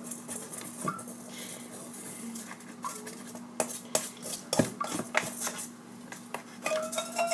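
A spoon and a bowl knocking and clinking irregularly, with a little scraping, as a hot borax solution is handled and stirred. A few of the clinks ring briefly. A faint steady hum runs underneath.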